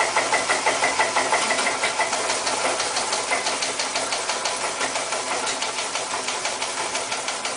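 Intro sound effect: a hissing noise that pulses about five times a second, with faint high beeps during the first two seconds, slowly fading.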